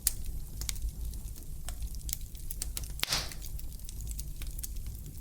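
Fire in a fireplace crackling, with irregular sharp pops over a steady low rumble. A brief hiss rises about three seconds in.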